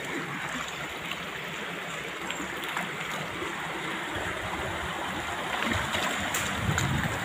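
River water rushing over rocks in a steady, even hiss. A low rumble builds up over the last few seconds.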